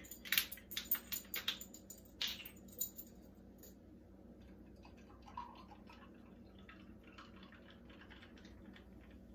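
A plastic Sprite bottle's cap is twisted open with a quick run of sharp clicks. The soda is then poured into glasses of punch with a faint fizzing crackle.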